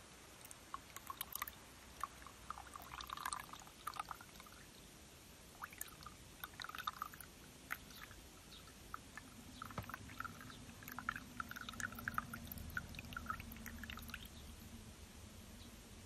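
Orange juice pouring from a plastic citrus juicer's spout into a glass, a faint, uneven splashing and trickling, thinning to drips near the end.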